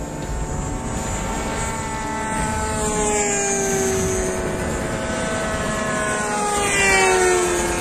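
Several radio-controlled model warplanes flying overhead together, their motors and propellers making overlapping steady tones that each slowly drop in pitch as they pass. The loudest pass comes about seven seconds in.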